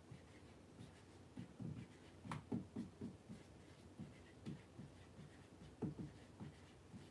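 Marker writing on a whiteboard: a run of short, faint strokes, with one sharper tap a little over two seconds in.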